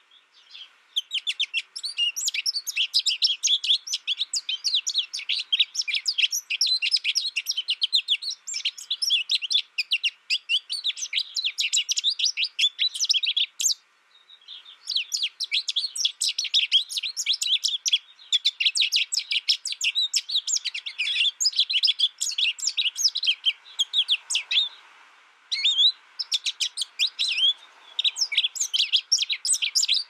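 American goldfinch song: a fast, continuous run of high twittering chirps and warbles. It breaks off briefly about halfway through and twice more later.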